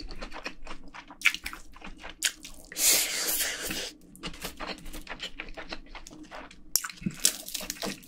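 Close-miked wet chewing and lip-smacking of a mouthful of saucy braised pork and rice, many short moist clicks, with a louder noisy burst lasting about a second about three seconds in.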